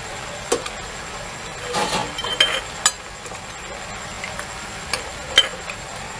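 Pickle being spooned from a steel vessel into glass jars: a spoon scraping and scooping, with scattered sharp clinks of metal and glass, over a steady low hiss.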